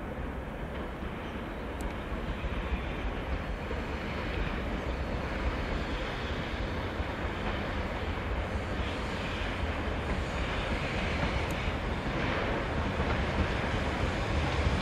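HD300 hybrid diesel shunting locomotive moving slowly up to a tank wagon, a steady low running sound that grows gradually louder as it comes closer.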